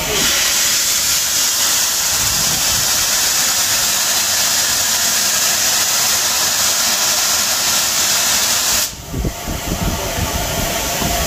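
A railway locomotive venting with a loud, steady hiss that cuts off abruptly about nine seconds in.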